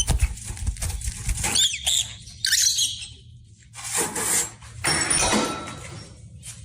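An animal making a few short, high-pitched squeaky calls over a steady low hum, followed by two longer rustling noises about four and five seconds in.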